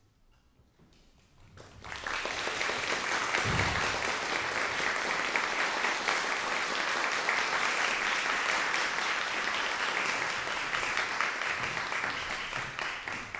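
Concert hall audience applauding, beginning after a short silence about a second and a half in and fading away near the end.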